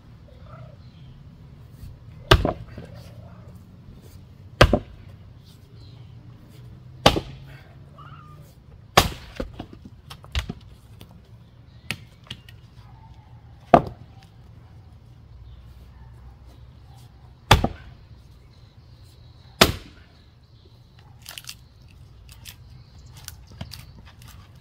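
Heavy splitting blows into wet, stringy firewood rounds: about seven sharp, hard chops a few seconds apart, with a few lighter knocks between them.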